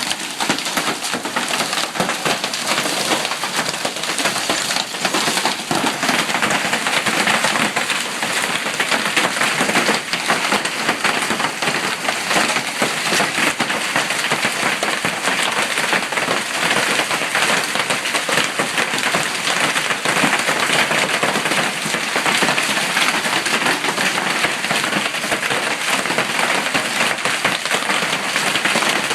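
Hail falling steadily, a dense continuous clatter of hailstones hitting the ground and hard surfaces, mixed with heavy rain.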